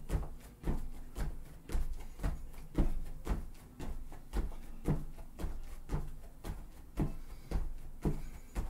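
Sneakered feet landing on foam gym mats over a wooden deck during a jumping exercise, a dull thud about twice a second, some landings doubled.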